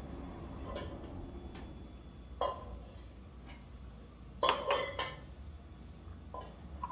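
A few light clinks and knocks of kitchenware being handled on a countertop, the loudest pair about four and a half seconds in, over a faint low steady hum.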